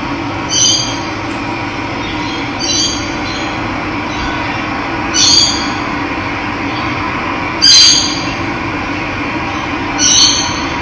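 Steady rush of running water, with a bird giving a short high call about every two and a half seconds, five calls in all.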